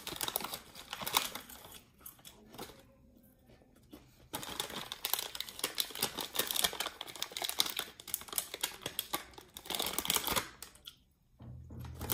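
Crinkling of a plastic snack packet handled close to the microphone, in two stretches of dense irregular crackling with a pause of about two seconds between them.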